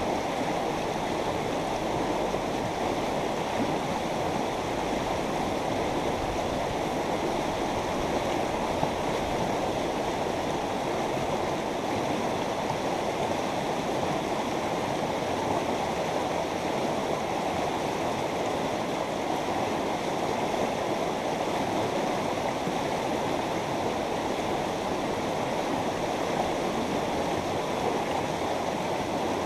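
Mountain river running over rocks, a steady rushing and burbling of the current.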